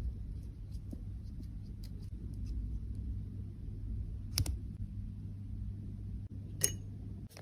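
Handling noises: faint small ticks, then two sharp clicks about two seconds apart, over a steady low hum.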